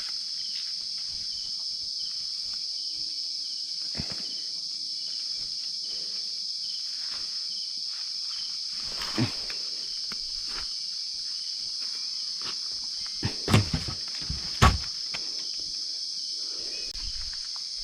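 Steady, high-pitched chorus of insects in the forest, with a few sharp knocks and rustles partway through and a couple of louder thumps near the end of the middle stretch.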